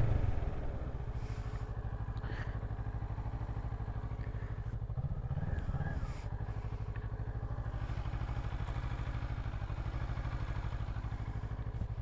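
2012 Kawasaki Ninja 650's parallel-twin engine idling steadily with an even low pulse, after wind and road noise die away in the first second as the bike comes to a stop.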